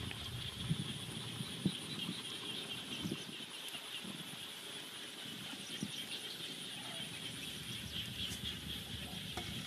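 A few soft knocks and handling sounds as a bamboo skewer is worked through a raw whole chicken in a metal basin, over a steady high-pitched outdoor hum.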